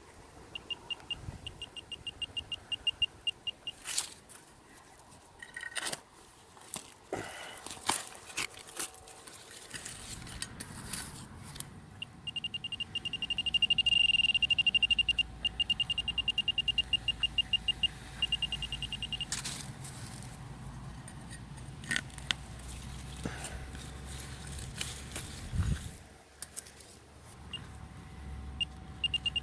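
Handheld metal-detecting pinpointer beeping in rapid pulses as it is worked through a dig hole. About halfway through the pulses quicken and run together into one steady tone: the pinpointer is right on the buried target, a coin. Knocks and scrapes of digging tools in root-filled soil come in between the beeps.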